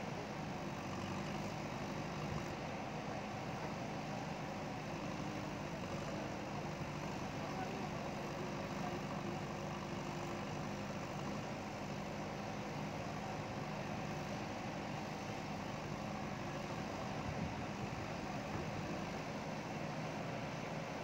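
JCB ecoXcellence backhoe loader's diesel engine running steadily at an even speed.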